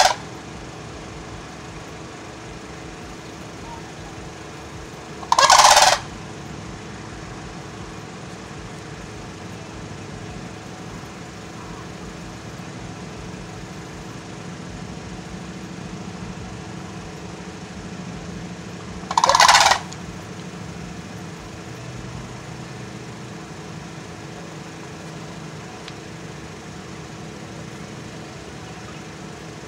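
Sandhill crane calls: the tail of one call at the very start, then two short loud calls, each under a second, about five seconds in and again near twenty seconds, with a steady low hum between them.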